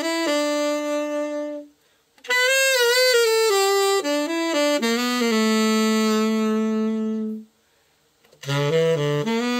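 Yamaha YTS-62 tenor saxophone played solo as a play-test after a full overhaul. A held note, a short breath, then a phrase that settles onto a long held note. After another breath, a new phrase dips into the low register.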